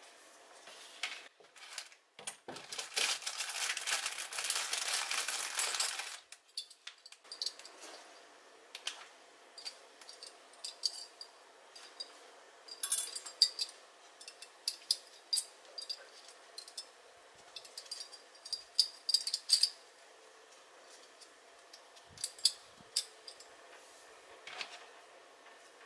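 Hand-sewing handling sounds: a rasping pull of yarn through the bag's fabric for a few seconds, then scattered light clicks and taps of the needle and work being handled.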